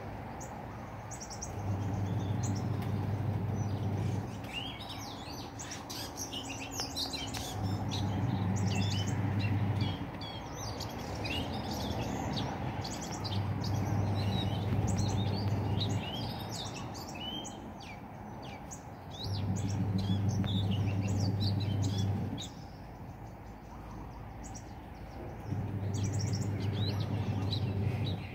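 Small birds chirping in many quick, short calls, thickest through the middle. A low steady hum, louder than the birds, comes on five times for about three seconds each, roughly every six seconds.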